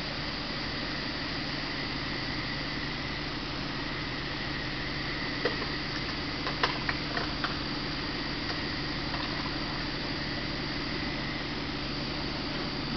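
Buick Park Avenue's V6 engine idling steadily under a hiss. A handful of sharp clicks come close together about halfway through.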